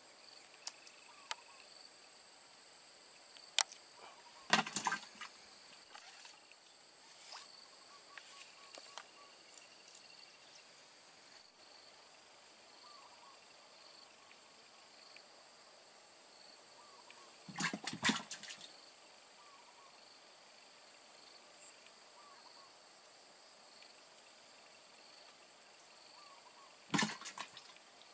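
Steady high-pitched drone of insects in a swampy plantation, with a second fainter tone below it. A few brief sharp noises break in about four to five seconds in, midway, and near the end.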